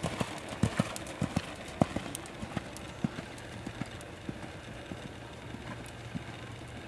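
Hoofbeats of a horse trotting on a sand arena: a run of soft thuds, closer together and louder for the first few seconds, then fainter and sparser.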